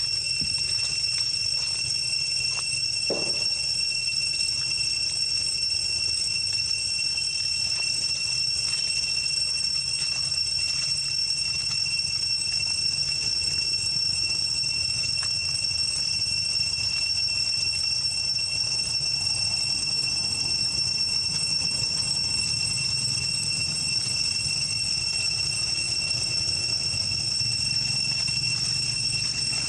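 Cicadas droning steadily on one high pitch, over a low steady rumble. One short squeak comes about three seconds in.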